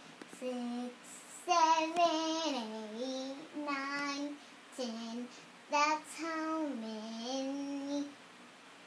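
A young girl singing to herself with made-up words as she settles to sleep: short sung phrases with held notes that slide down in pitch, separated by brief pauses.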